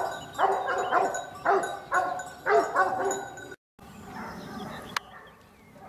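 A dog barking over and over, about two barks a second, until the sound cuts off suddenly about three and a half seconds in; after that only faint background with a single click.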